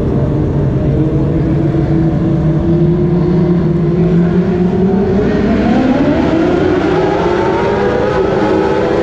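Motorcycle-engined dwarf race cars running together in a pack: a steady engine drone that starts rising in pitch about five seconds in as the cars speed up.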